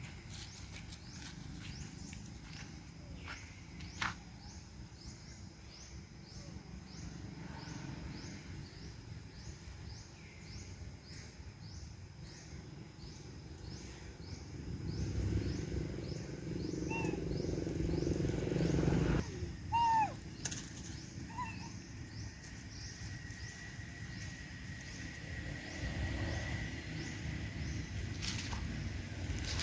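Animal calls outdoors: a fast, even run of high chirps through the first half, a few short squeaking calls past the middle, and a thin steady high tone near the end.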